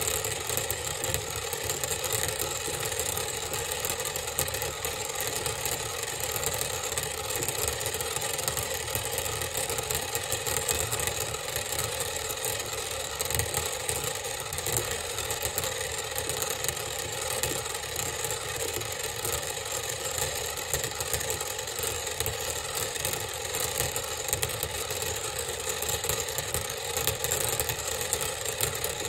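Steady motor whir from a magnetic stirrer spinning a water vortex in a glass cylinder, with a constant hum of several steady tones and no change in speed.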